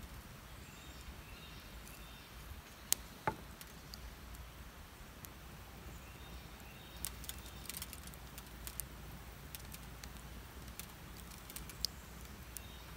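Wood fire burning in a small metal hobo stove, crackling with scattered sharp pops and snaps. The loudest snaps come about three seconds in.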